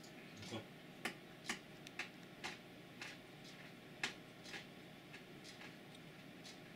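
A cat chewing almonds, a series of sharp crunching clicks about twice a second that fade out after about four and a half seconds.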